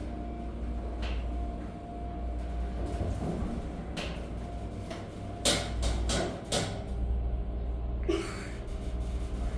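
Schindler elevator cab running with a steady low hum, broken by scattered clicks and knocks about a second or more apart, a cluster of them near the middle. The ride is glitchy and a little shaky.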